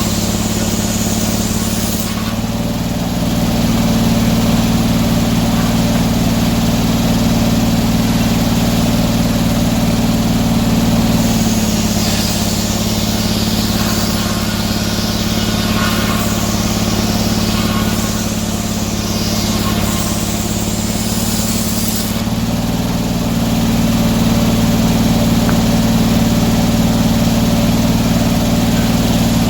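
An engine running steadily, its note shifting slightly about two seconds in, again about eleven seconds in and again near the end, with fainter rising and falling whines above it in the middle.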